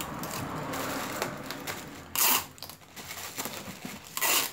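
Tape pulled off a desktop tape dispenser and torn on its blade, in two short tearing sounds about two seconds apart, over a rustle of handled tissue paper.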